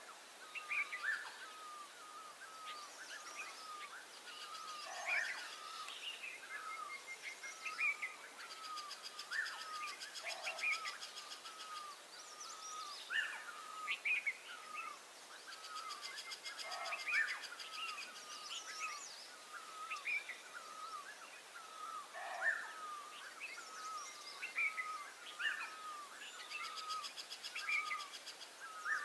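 Chorus of small songbirds calling: a steady run of short repeated chirps, two or three a second, with higher trills breaking in every few seconds.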